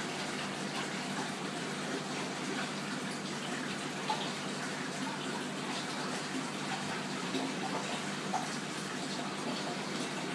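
Steady running water.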